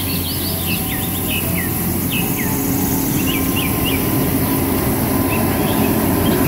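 MFH 5500 compact street sweeper running steadily, its engine giving a low steady hum under the noise of its rotating brushes on the road. Small birds chirp over it repeatedly, mostly in the first half.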